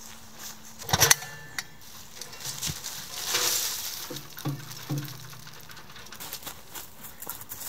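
A small metal tent wood stove is handled and tipped over. There is a loud metal clank about a second in. Then its ash is shaken out onto dry leaves with a brief rushing hiss, followed by a few light metallic clinks as the stove is knocked and shaken.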